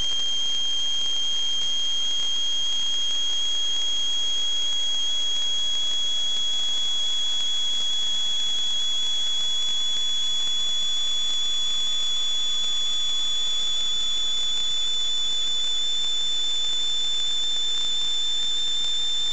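A steady, high-pitched whistling tone that creeps slowly upward in pitch, over a constant hiss.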